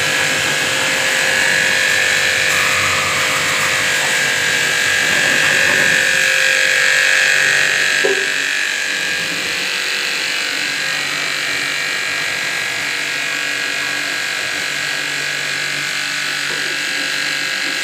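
Pressure washer running steadily, its motor humming under the hiss of the high-pressure water jet hitting the motorcycle's wheel, frame and fuel tank; the spray sound shifts and drops a little about eight seconds in as the jet moves to another part.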